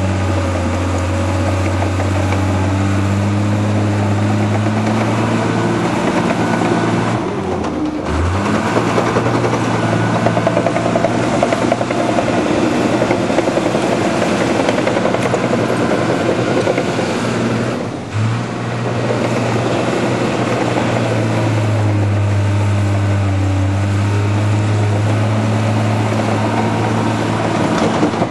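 Diesel engine of a crawler dozer running steadily under load as it pushes soil with its blade. Twice, about a quarter of the way in and again past halfway, the engine note dips and then climbs back up.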